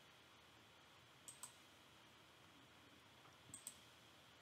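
Computer mouse clicking: two quick pairs of clicks, one a little over a second in and another near the end, over faint room hiss.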